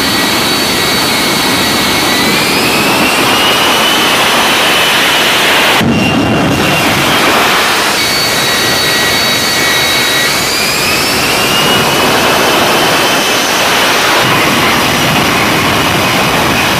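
F-35B's jet engine running at high thrust with the lift fan engaged: a loud, steady rush with a high whine that climbs in pitch about two seconds in. It breaks off briefly near six seconds, then the whine climbs again near eleven seconds.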